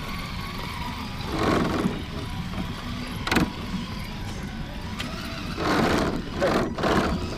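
Electric motor and gears of a radio-controlled rock crawler whirring in short bursts as it is driven up rock, with a sharp click about three and a half seconds in.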